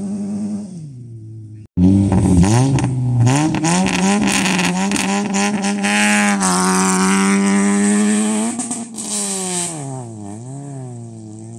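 Rally hatchback's engine held at high revs on the start line with sharp crackling pops, then launching: the note drops, bends through a gear change and fades as the car pulls away on the gravel stage.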